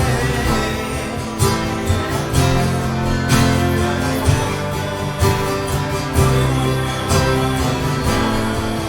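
Worship song instrumental passage between sung lines: strummed acoustic guitar with bass, accented about once a second.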